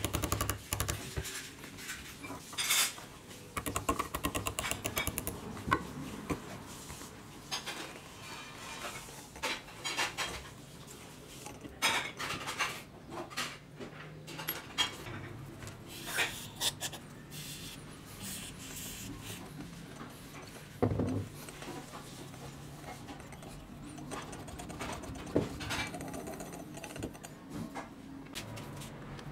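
Chuck key turning in the rusty, oiled geared chuck of a vintage National corded drill: metal gear teeth clicking in quick runs, with scattered single metallic clinks and knocks as the key and chuck are handled.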